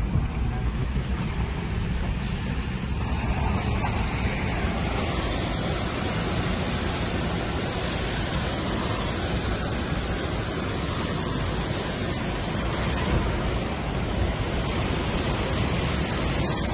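Steady rushing of a swollen, muddy flood river, mixed with the low rumble of a car driving slowly over a rough, rocky road.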